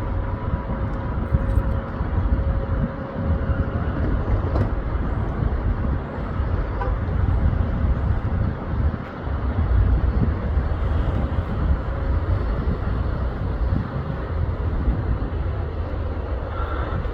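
Steady loud rumble of an Emirates Airbus A380's four jet engines and airflow, heard as cabin noise. A faint steady hum sits on top for the first few seconds.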